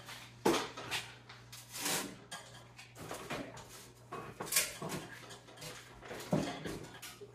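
Irregular metallic clanks and rattles from an old Toro Snow Hound 20 snowblower being handled and worked over, a sharp knock every second or so.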